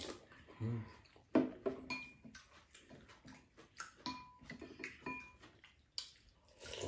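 Spoons clinking and scraping against ceramic bowls while eating, as a string of short, irregular clicks, a few of which ring briefly.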